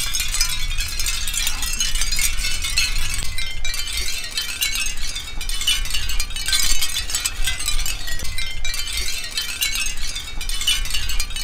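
Capiz shell wind chime moving in the breeze, its many thin shell pieces tinkling and clattering against each other continuously.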